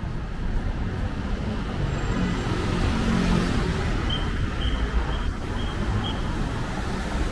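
City road traffic: cars driving past on wet asphalt, their tyre hiss swelling as one passes about three seconds in, over a steady low engine rumble. A run of short high peeps sounds about four to six seconds in.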